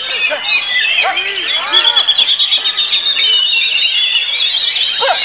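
Oriental magpie-robin (kacer) singing a fast, varied song: a dense run of quick rising and falling whistles, with a steady high trill through the middle.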